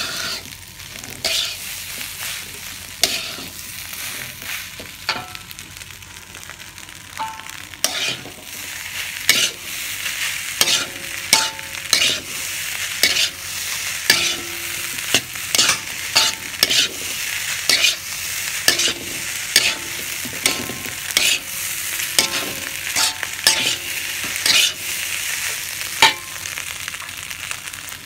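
Fried rice sizzling in a metal wok while a metal spatula stirs and tosses it, the spatula scraping and clanking against the pan, often about once a second. The sizzle grows louder about eight seconds in.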